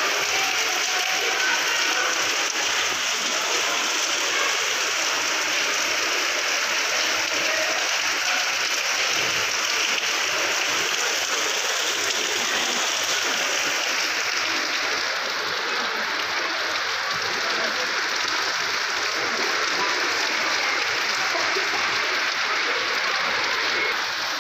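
Torrential rain pouring onto paved ground, puddles and trees: a steady, unbroken hiss of rain.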